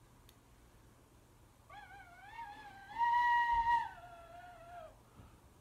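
Tin whistle played in three wavering held notes, starting about a second and a half in. The middle note is the highest and loudest, and it is followed by a lower note that stops about a second before the end.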